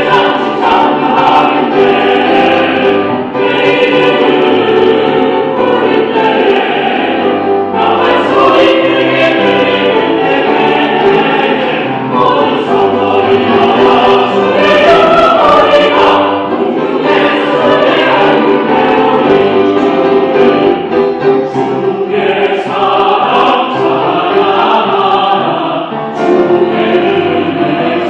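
Choir singing a hymn in several parts.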